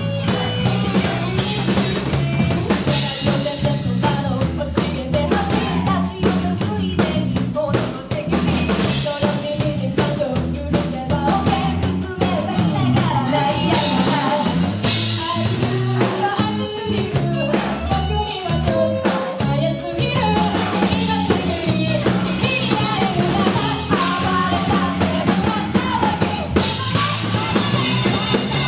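Band music with a full drum kit, bass drum and snare keeping a steady beat under sustained bass notes and melodic parts.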